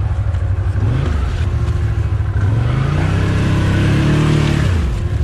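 ATV engine running, then revving up from about two seconds in, held high for a couple of seconds and dropping back near the end, as the rider gives it throttle to work the stuck quad out.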